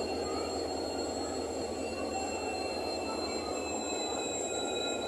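Indian passenger train running through the station on the rails: a steady dense rumble with thin, steady high-pitched whining tones over it.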